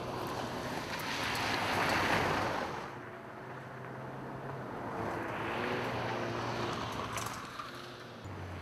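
Ford Fiesta R2 rally cars passing on loose gravel: two swells of tyre-on-gravel noise, the first peaking about two seconds in and the second around six seconds, with the engine faintly underneath.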